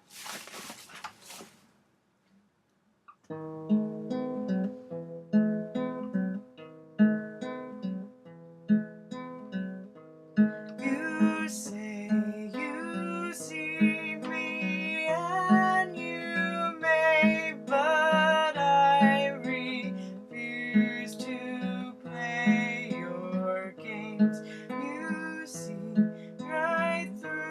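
Acoustic guitar intro to a song: after a brief noise and a short pause, steady picked notes begin about three seconds in. About ten seconds in, a higher wavering melody line joins them.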